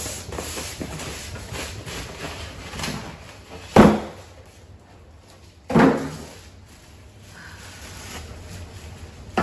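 Styrofoam packing blocks being pulled off a plastic-wrapped heat press, with rustling of the plastic and two sharp knocks about four and six seconds in.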